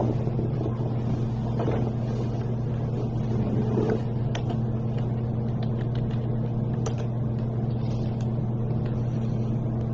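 Steady low hum, with a few faint clicks scattered through it.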